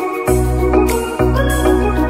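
Background music on a keyboard or organ-like sound, with sustained bass notes that change about once a second under a higher melody.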